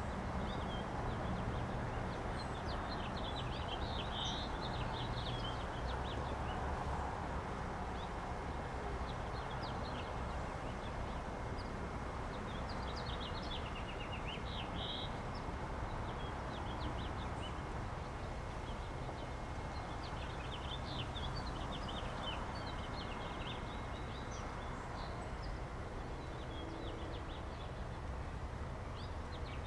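Small birds chirping on and off over a steady low outdoor background rumble.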